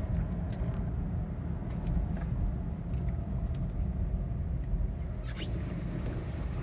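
Steady low rumble of a car being driven slowly, heard from inside the cabin, with a few faint clicks.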